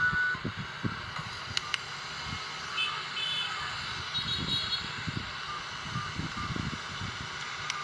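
The last notes of a feature phone's ringtone melody, cutting off just after the start. Then a pause of background rumble, with a few faint, short, high electronic beeps near the middle.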